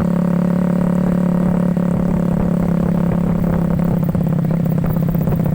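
Motorcycle engine of a home-built ATV running steadily under way at an even speed. Near the end the pitch eases slightly lower and the individual firing pulses come through more clearly.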